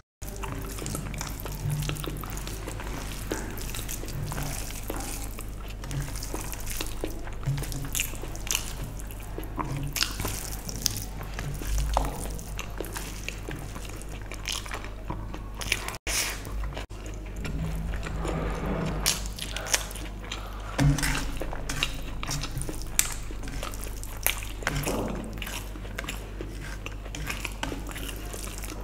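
Close-miked eating sounds: wet chewing and lip smacks from a mouthful of vegetable biryani eaten by hand, with squishing as fingers mix and scoop the rice on the plate. Many short clicks and smacks run over a steady low hum.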